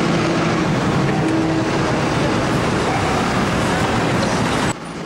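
City street traffic noise: a dense, steady rumble of passing vehicles. It cuts off abruptly near the end.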